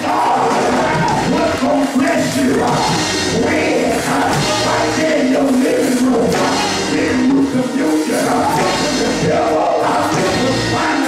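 Loud live gospel praise music with a steady beat and a voice singing through the church's microphone and speakers.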